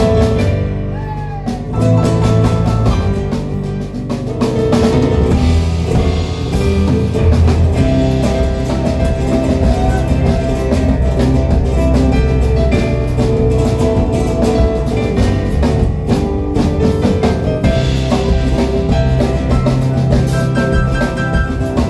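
Live instrumental band of Kurzweil keyboard, Yamaha drum kit and electric guitar playing together, with steady drumming under sustained keyboard and guitar notes.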